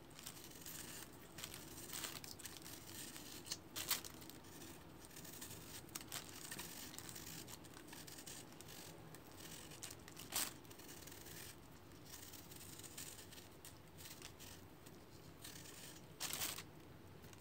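A knife peeling the skin off a pear: faint, steady scraping and slicing, with a few sharper scrapes scattered through it.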